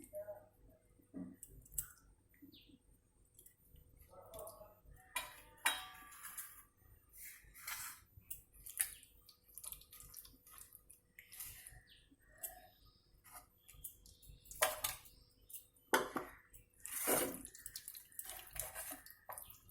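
Marinated chicken pieces being handled in a bowl: irregular light clinks and wet knocks of the bowl and utensils, with a few louder ones past the middle.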